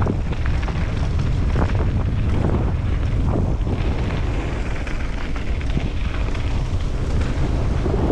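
Wind rumbling on a helmet-mounted camera's microphone during a fast downhill mountain-bike descent, with frequent knocks and rattles from the bike and tyres on loose dirt and rocks.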